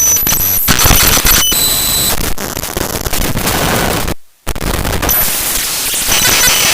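Raw binary data of the Google Drive DLL file drivefsext.dll played as audio: loud harsh static crackling with clicks and brief high whistling tones. It drops out to silence for a moment about four seconds in, then resumes.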